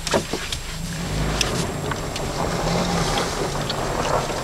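Car engine and cabin noise heard from inside a car moving slowly through snow: a steady low hum, with scattered short clicks.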